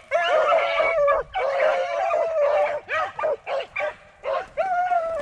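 Beagles baying, drawn-out bawls held about a second each, mixed with short yelps: hounds opening on a rabbit that has just been jumped.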